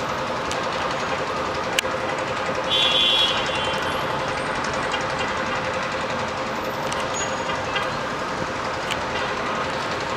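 Steady din of slow street traffic heard from high above, with a constant hum running through it. About three seconds in, a short, louder high-pitched tone sounds.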